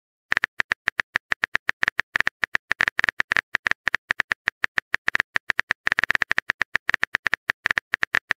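Quick, uneven taps of a smartphone keyboard typing sound effect, about eight or nine clicks a second.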